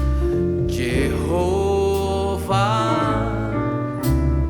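Gospel song played by a small jazz band: drums with cymbal crashes, double bass, piano and a held melody line with vibrato.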